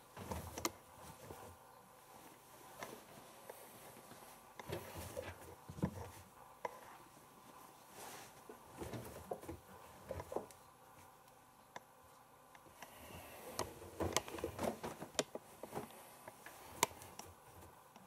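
Laundry being loaded into the drum of a Siemens IQ1430 front-loading washing machine: irregular rustling of fabric and light knocks and clicks, coming in short clusters.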